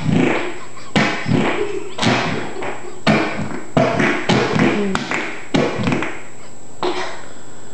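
A boy's back pressing and shifting against a floor, making a run of about ten short fart-like squelches and thumps.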